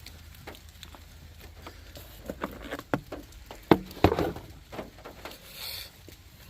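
Irregular light taps, clicks and knocks of hands handling wires and parts in a truck's engine bay, the sharpest two knocks coming a little past the middle, with a brief rustle near the end.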